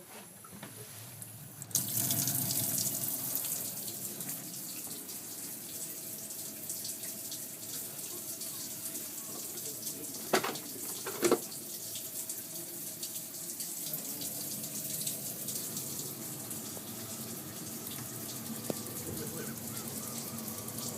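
Water running steadily from a tap, coming on suddenly about two seconds in. Two sharp clicks about a second apart come midway.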